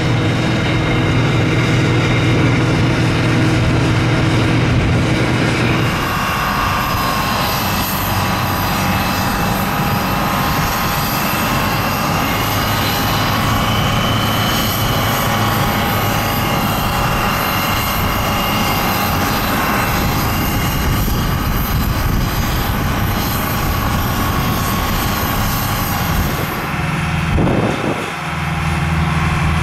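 Steady turbine whine and low engine hum around a parked Boeing 737-800 freighter on the ramp. The sound changes in character about six seconds in and again near the end, when a de-icing truck comes into the sound.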